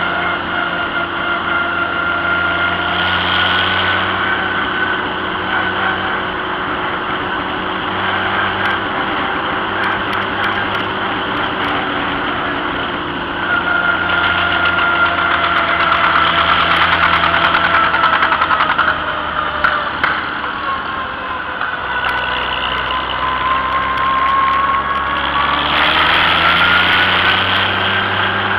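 Antique farm tractor's engine running as the tractor drives along a road, heard from on board. A high whine over the engine drops in pitch about three-quarters of the way through and rises again near the end as the speed changes.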